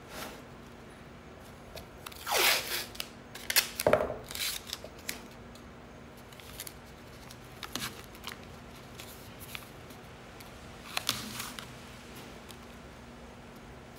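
Blue painter's tape being pulled off the roll and torn, a few short rasping rips about two to four seconds in and again around eleven seconds, between quieter handling as the strips are pressed down onto an MDF cube.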